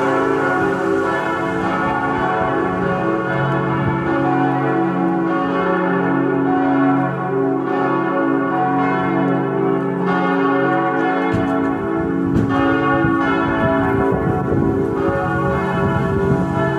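Full peal of four church bells swinging together, cast by Perner of Passau in 1972 and tuned to C-sharp, E, F-sharp and A (cis1, e1, fis1, a1). Their strikes overlap continuously in a loud, ringing wash of tones.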